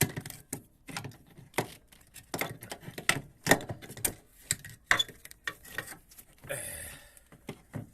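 Irregular clicks, knocks and metallic clatter of hands working parts under a generator: the fuel pump being pushed aside and the starter moved into position. A short scraping rustle comes about six and a half seconds in.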